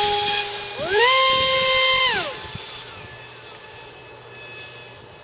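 RC speed plane's brushless electric motor (JustGoFly 550TH turning a 5x5 prop) whining at full throttle: the pitch drops off, sweeps up again about a second in, holds and falls away just after two seconds. After that only a faint, high whine of a plane far off is left.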